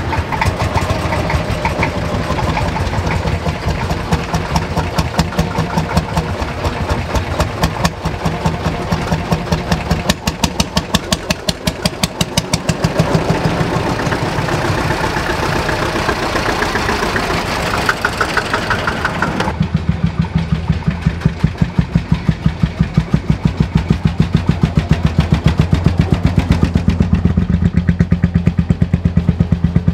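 Old tractor engines running as the tractors drive past, their fast, even firing beat heard close. About two-thirds through, the sound changes abruptly to a single slower engine beating at about two firing strokes a second.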